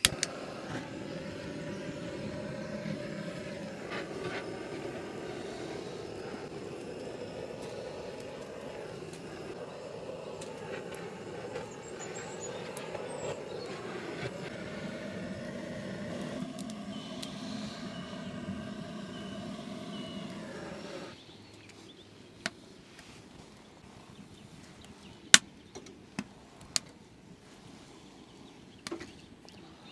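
Gas-canister blowtorch burning with a steady hiss while its flame is aimed into a wood stove's firebox to light the kindling, starting with a sharp click and cutting off suddenly about twenty seconds in. A few sharp clicks follow.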